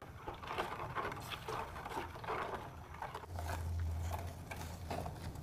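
Metal ladle stirring boiling tamarind and palm-sugar cuko sauce in a pot: irregular light clinks and scrapes of the ladle against the pot over the bubbling and swishing liquid. A low hum comes in for about a second and a half past the middle.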